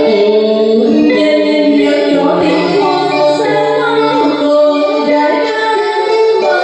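A woman singing a slow song through a microphone and PA, holding long notes with vibrato, over live electric guitar accompaniment.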